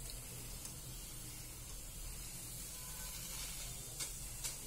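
Batter-coated baby corn deep-frying in hot oil, a steady sizzle, with two light clicks near the end.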